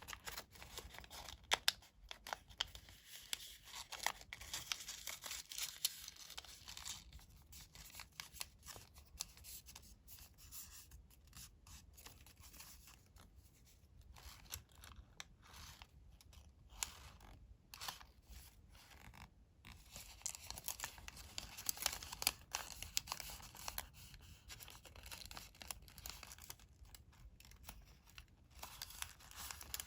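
Coloured origami paper being folded and creased by hand: on-and-off rustling and crinkling with many short sharp crackles as the folds are pressed down.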